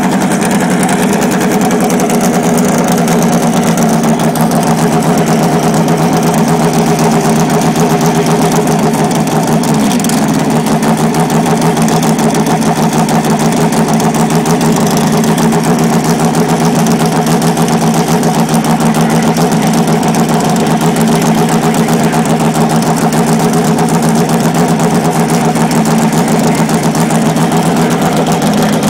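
Suzuki Pro Stock drag motorcycle's engine idling steadily on the starting line before its run, with one brief dip in its note about ten seconds in.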